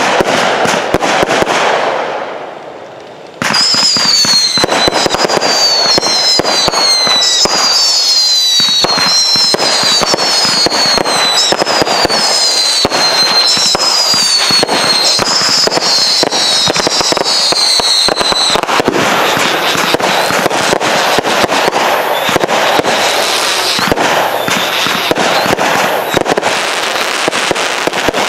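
Aerial fireworks firing in quick succession, with dense popping and crackling. After a brief lull about three seconds in, a run of repeated falling whistles sounds over the pops until about eighteen seconds in. Rapid crackling bursts follow.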